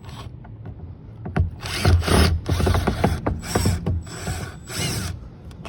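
A hand screwdriver tool clicking in about five short rasping runs as a Torx screw is backed out of a car's interior trim, typical of a ratcheting driver on its return strokes.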